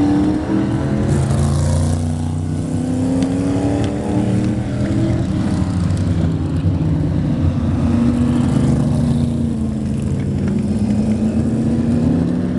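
Several vintage modified stock cars racing around an oval. Their engines rise and fall in pitch as the cars pass and accelerate out of the turn.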